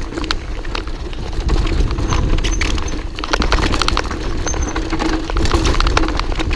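Mountain bike ridden fast down a bumpy dirt trail: a constant irregular rattling and clattering of the bike over the ground, with a low rumble of wind and tyre noise on the camera's microphone.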